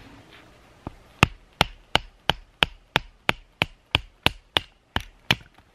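Split firewood being batoned with a knife: a wooden baton knocks the knife's spine in an even run of about a dozen sharp strikes, roughly three a second, driving the blade down through the pine to make kindling. The strikes start just over a second in and stop near the end.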